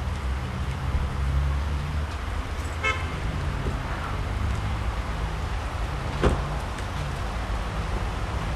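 Outdoor street background: a steady, uneven low rumble, with a brief toot about three seconds in and a single sharp knock a little after six seconds.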